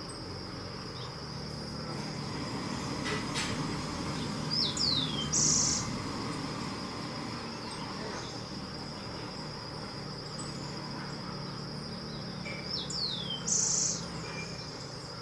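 A steady high-pitched insect drone, over which a bird calls twice, about eight seconds apart: each call is a pair of quick falling whistles followed by a short buzzy note.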